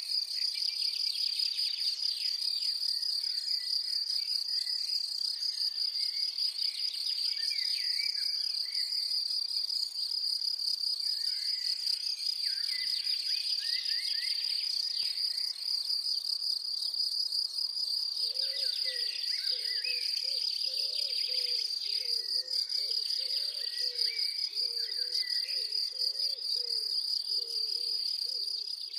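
Meadow insects (crickets or grasshoppers) stridulating in one continuous high-pitched, finely pulsed buzz, with songbirds calling on and off beneath it.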